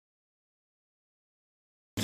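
Complete silence: the sound is muted until a steady low hum cuts in abruptly at the very end.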